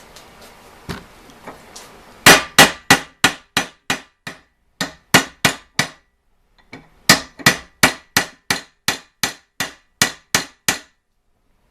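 Hammer blows on a steel pin in a Model T pedal assembly, ringing metallic strikes at about three a second: a run of about a dozen, three more, then after a short pause another dozen, as the pin end is worked over.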